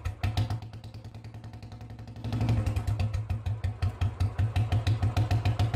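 Royal Enfield Bullet's single-cylinder engine thumping along at low revs with a steady, even beat, growing louder about two seconds in as the motorcycle approaches.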